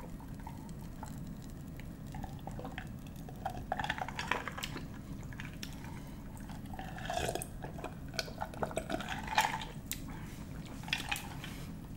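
Close-miked drinking of iced soda from a glass jar: several gulps and swallows spread through, with ice cubes clinking against the glass.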